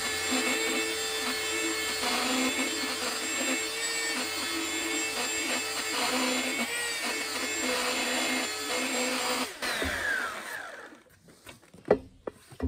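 Handheld belt sander running with a steady whine as it sands the edge of a cedar board. About ten seconds in it is switched off and the motor winds down with a falling pitch.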